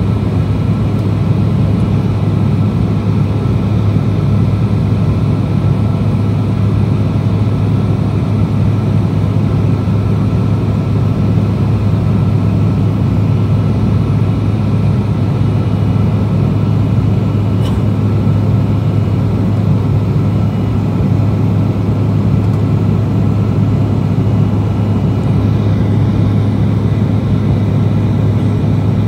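Steady cabin noise of an Embraer E175LR climbing out after takeoff, heard from inside the cabin: its GE CF34-8E turbofan engines running with a steady rush of air and a strong, steady low drone.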